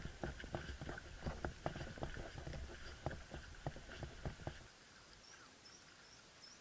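Footsteps in rubber boots on a wooden boardwalk, a steady run of knocks about two to three a second over a low rumble, which stops suddenly about two-thirds through. After that come a few faint, high bird chirps.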